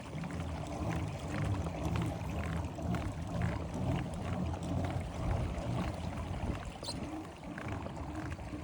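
Water swishing and lapping against a pedal kayak's hull as it is pedalled across a lake, with a loose, uneven rhythm.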